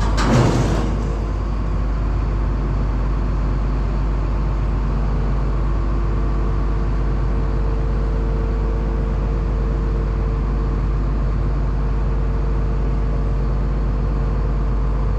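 Massey Ferguson 9690 combine engine running steadily, with a short rush of noise in the first second.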